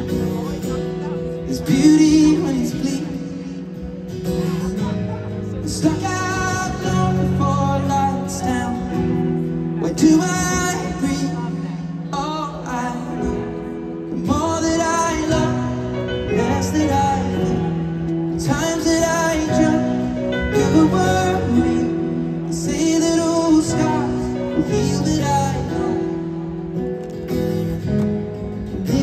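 Live solo performance of a slow song: a male singer's voice in phrases over acoustic guitar, heard from the audience in a large arena.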